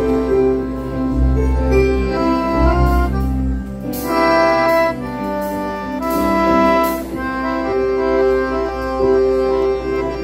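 Accordion and electric keyboard playing hymn music in held chords that change about every second.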